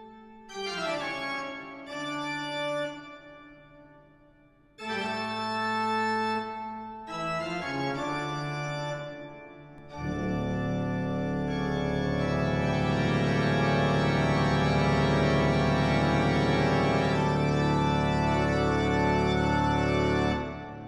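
Organ music: several short chords separated by brief pauses, then from about halfway a long, loud, sustained full chord that fades away just before the end.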